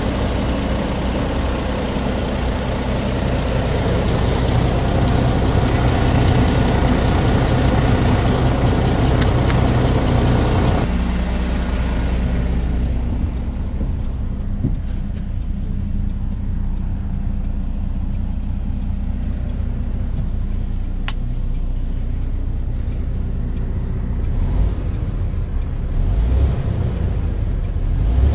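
MAN TGX 26.640's straight-six diesel idling. About eleven seconds in, the broad engine noise drops suddenly to a muffled, steady low hum as heard from inside the closed cab, with a few low thumps near the end.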